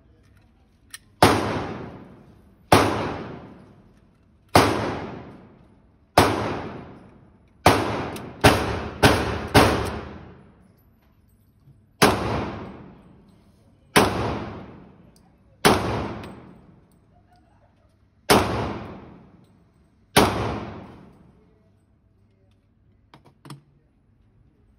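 Thirteen shots from a .40 S&W pistol, mostly one to two seconds apart with a quick run of four near the middle. Each crack echoes and dies away in the indoor range.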